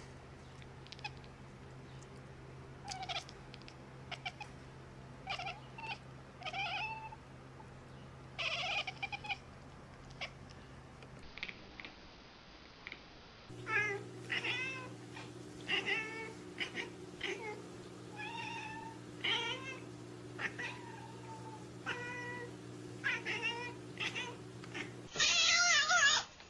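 Cats meowing over and over, short bending calls about one a second, over a faint steady hum; the calls grow louder near the end.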